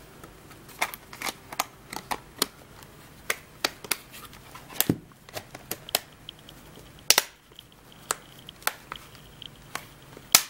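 Plastic clips of a flip case's replacement back cover snapping onto a Samsung Galaxy Note 3 as it is pressed in around the edges: a run of irregular sharp clicks, the loudest about seven seconds in and just before the end.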